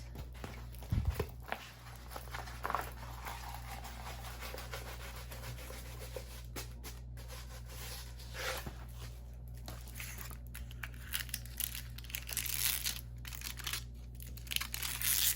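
Plastic packaging of a diamond painting kit crinkling and rustling as it is handled and opened, with a few soft knocks about a second in.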